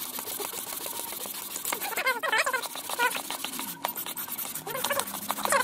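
Aluminium cylinder head of a 140 cc pit-bike engine rubbed back and forth on wet 180-grit sandpaper over flat glass: a steady wet rasp of hand lapping, skimming the head's gasket face to raise compression. A few short high squeaks come through about two, three and five seconds in.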